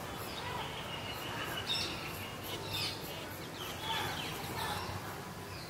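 Birds chirping: short, high chirps scattered here and there over steady outdoor background noise.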